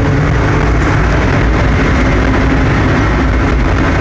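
Large mining haul truck's diesel engine running steadily with a constant low rumble, heard from inside the cab as the truck drives downhill on a dirt haul road.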